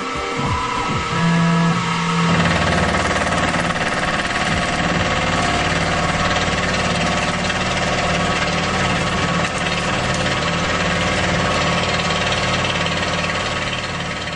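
Tormach CNC mill fly-cutting a 6061 aluminum plate: the spindle and fly cutter set in about two seconds in with a steady cutting noise over a low pulsing hum, taking a fifty-thousandths-deep cut.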